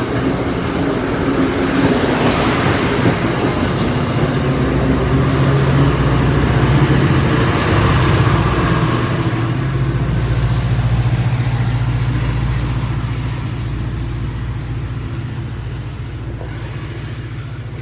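Diesel commuter train running past, its locomotive engine humming low under rolling noise; the sound swells to a peak around the middle and then slowly fades as the train pulls away.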